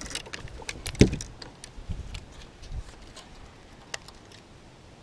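Fishing tackle being handled on a bass boat's deck: a run of small clicks and ticks with one louder knock about a second in, thinning out to a single tick near the end.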